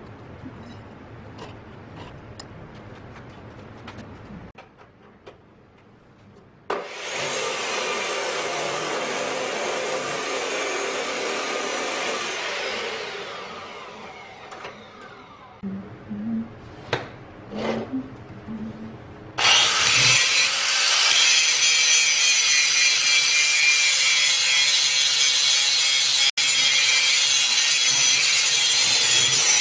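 A power tool running against steel in two long stretches. The first stretch winds down with a falling pitch about halfway through, a few short knocks follow, and then it runs again, steady and loud.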